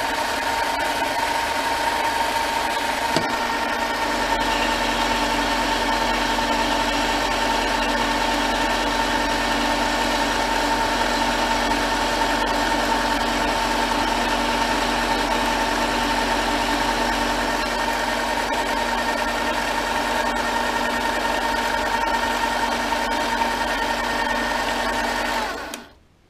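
Metal lathe running steadily under power, with a steady high hum from its motor and gearing; a deeper low hum joins about four seconds in. The machine is switched off near the end and its sound cuts out quickly.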